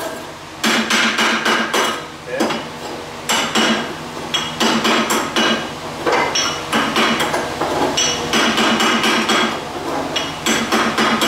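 Hand hammer striking the cut end of a thin-wall steel pipe, knocking off plasma-cutter dross. The quick metallic strikes come in runs with short pauses, and the pipe rings with each strike.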